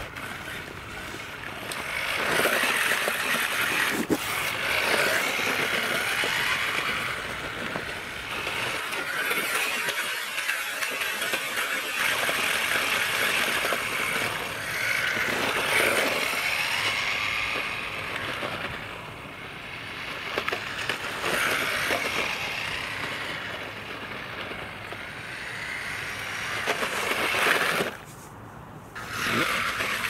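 Brushed electric motor and gear drivetrain of a 1:16 four-wheel-drive RC drift car whining as it is driven, the pitch rising and falling over and over as it speeds up and slows through its passes. The sound drops away briefly near the end, then picks up again.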